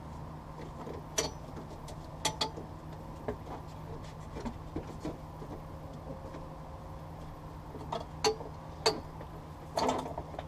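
Scattered sharp clicks and knocks from hands and tools working a rubber windshield gasket and glass on a semi truck, over a steady low hum; the knocks come in a cluster near the end.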